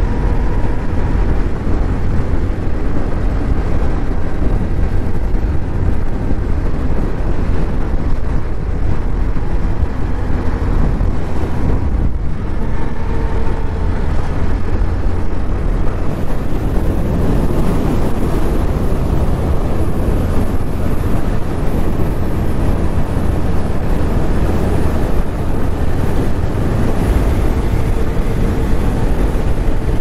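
A moving scooter heard from the rider's seat: a steady, loud rumble of wind buffeting the microphone over the engine and road noise.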